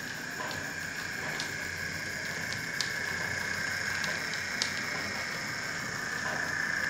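Hornby Class 50 OO-gauge model locomotive running along the track: its motor and drive give a steady high whine, with a few faint ticks from the wheels on the track.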